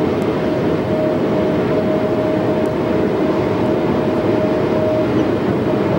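Automatic car wash air dryer blowers blowing on the car: a steady rushing noise with a constant whine running through it, marking the drying stage at the end of the wash.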